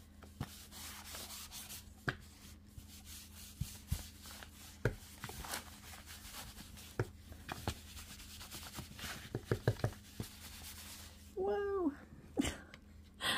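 An ink pad dabbed and rubbed onto journal paper: soft scuffing broken by many irregular taps as the pad strikes the page. Near the end comes a short pitched call that bends in pitch.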